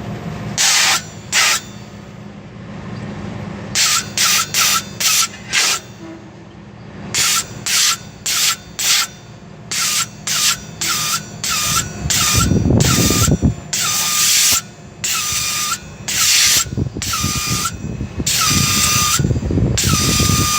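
Short, repeated hissing blasts from a spray or air nozzle cleaning a clogged condenser coil, about two dozen in quick succession, some longer than others, many ending on a brief tone. A steady low hum runs underneath.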